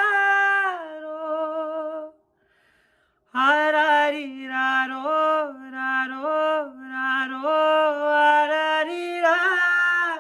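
A solo male voice sings unaccompanied, with no words, holding long notes with vibrato and moving through quick ornamented turns. It stops about two seconds in and comes back about a second later with a run of short melodic phrases.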